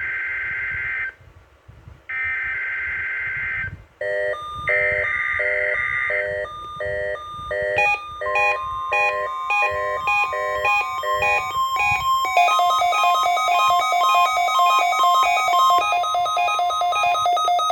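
NOAA Weather Radio Required Weekly Test alert: three short, harsh, warbling EAS/SAME digital header bursts, then the steady 1050 Hz weather radio warning alarm tone, sent to set off weather alert receivers. A receiver's rhythmic electronic alert beeping sounds over it from about four seconds in and turns faster about twelve seconds in.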